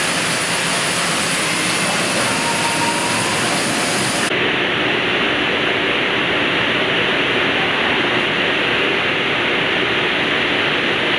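Heidelberg Speedmaster XL 75 Anicolor sheetfed offset press running: a loud, steady mechanical whir and rush. About four seconds in, the hiss on top cuts out abruptly, leaving a duller steady noise.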